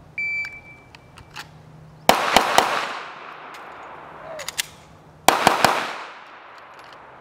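A shot-timer beep, then a Glock 45 9mm pistol fired in two quick groups of about three shots, about two seconds in and again a little after five seconds, each group trailing off in a ringing echo.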